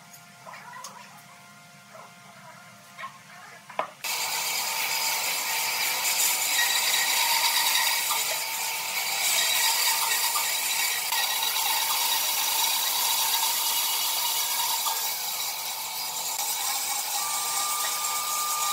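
Faint light taps and scratching at first, then about four seconds in a bandsaw starts suddenly, its blade cutting a thick pine block with a loud, steady sawing noise. A thin steady tone joins near the end.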